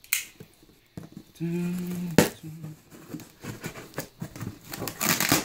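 A cardboard shipping box being handled and turned over on a bed. There is a sharp knock about two seconds in, then scattered taps and a burst of scraping and rustling near the end.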